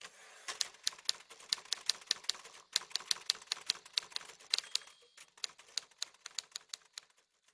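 Typewriter keys clacking in a quick, uneven run of strokes, about four or five a second, with a brief ringing tone about two-thirds of the way through.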